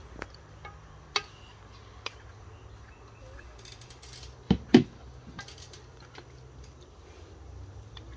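A plastic serving spoon knocking and scraping against a metal cooking pot as chicken pieces are dished out: a few light clicks, then two sharper knocks close together about four and a half seconds in.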